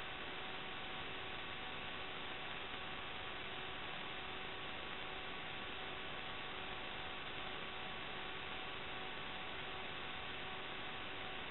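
Steady electronic hiss with a few faint steady hum tones on the audio channel of an FPV video recorder, unchanging throughout; no sound of the flight itself.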